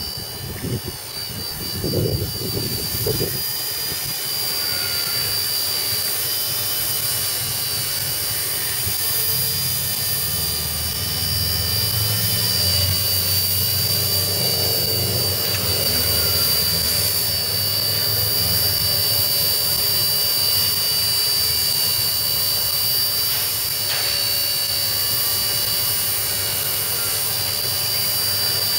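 WLToys V931 AS350 scale RC helicopter in flight: a steady high-pitched whine from its electric motors and three-blade rotor. A few low thumps come in the first few seconds, and a low rumble swells and fades in the middle.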